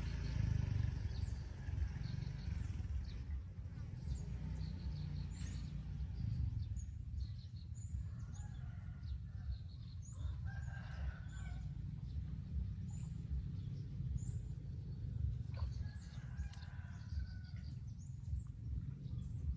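Roosters crowing now and then, with small birds chirping, over a low steady rumble.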